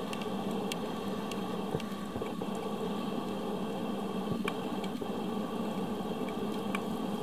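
Underwater sound picked up through a camera's underwater housing: a steady hiss with faint scattered clicks and ticks.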